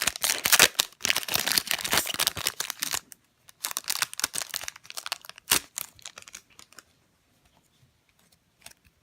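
Plastic wrapper of a Topps Series 2 baseball card pack being torn open and crinkled, loudest and densest for the first three seconds, then a few softer crinkles that die away.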